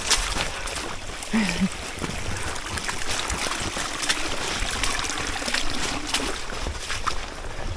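Rainwater running and trickling down a hiking trail that has become a water channel, with the scuffs and splashes of wet boots stepping through it.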